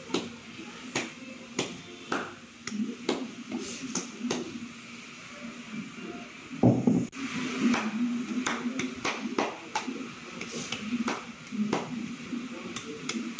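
Dark sauce being poured from a bottle into a small plastic measuring cup. Irregular sharp clicks come about twice a second, with one heavier knock a little past the middle, over a low steady hum.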